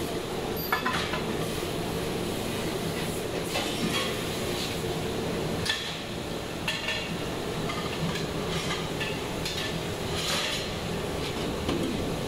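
Stainless steel pot lids and a plastic dish rack clattering against each other and the metal dish table as they are handled, several separate clanks over a steady machine hum.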